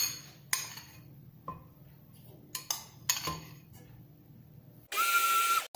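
A metal spoon clinks several times against a glass bowl and the steel cup of an electric coffee grinder as oat bran is spooned in. Near the end the coffee grinder's motor runs briefly with a steady whine, grinding the oat bran, and cuts off suddenly.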